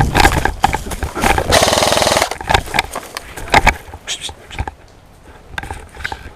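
Airsoft electric gun firing one rapid full-auto burst of under a second, about a second and a half in. Scattered sharp clicks and knocks come before and after it, with one louder knock a little later.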